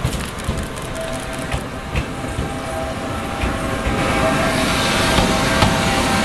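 Ohmi Railway Type 220 electric train passing close by: wheels clicking over rail joints over a steady whine. The running noise grows louder about four seconds in as the cars come alongside.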